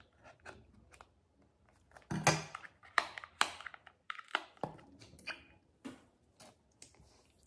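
Scissors cutting plastic shrink-wrap off a small cardboard box, the wrap crinkling and tearing as it is pulled away, in a run of short crackling rustles loudest about two to three and a half seconds in.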